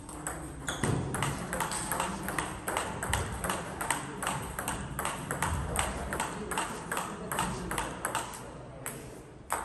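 Table tennis rally: the ball clicks off the rubber paddles and bounces on the table in quick, even alternation, about three knocks a second. The knocks stop about a second before the end, when the point is over.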